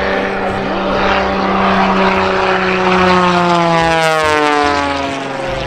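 Propeller-driven aerobatic airplane's piston engine droning loudly in flight, its pitch steady at first and then falling steadily over the second half.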